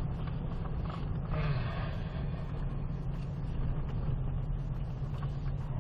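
Ford Raptor R's supercharged 5.2-litre V8 running at a steady low drone as the truck rolls slowly, heard from inside the cab, with tyre and gravel noise underneath. A faint voice comes in briefly about a second and a half in.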